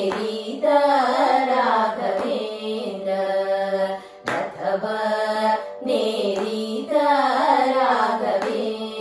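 Three women's voices singing a Kannada devotional bhajan together, with no instruments, in long wavering melodic phrases. There is a short break for breath about four seconds in.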